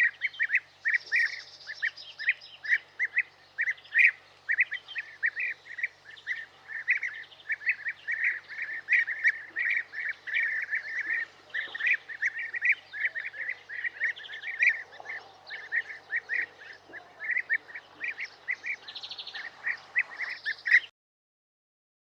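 Bird call recording: a long run of rapid, repeated chattering call notes, about five a second, with higher notes mixed in. It cuts off abruptly near the end.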